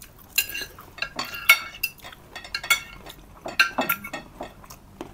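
Metal spoon clinking and scraping against ceramic plates during a meal: a dozen or so short, sharp clinks and taps, some of them ringing briefly.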